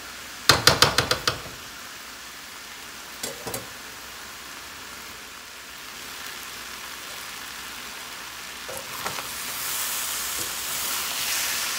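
Shredded cabbage and potatoes sizzling in a stainless steel wok, dry-roasting after their water has cooked off. A quick run of metal spatula strokes clatters against the pan about half a second in, with two more around three seconds. The sizzle grows louder near the end as the mixture is stirred again.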